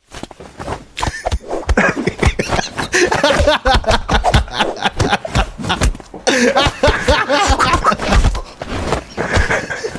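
Several men laughing hard, mixed with the comic sound effects dubbed onto a clip of a cat fighting a person's hand, with many quick sharp hits throughout.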